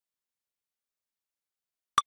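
Near silence, then one short, sharp electronic blip near the end: the lightning-detector software's alert for a newly logged lightning strike.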